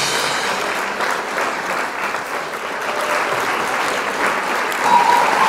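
Crowd applauding steadily, with a few higher held calls coming in near the end.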